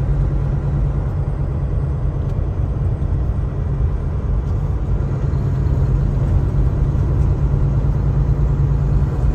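Steady low drone of engine and road noise inside the cab of a Kenworth T680 semi truck driving along.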